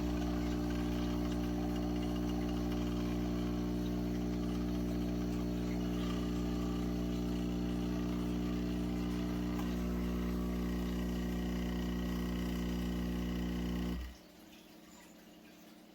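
Espresso machine's pump running with a steady hum, then cutting off abruptly about 14 seconds in.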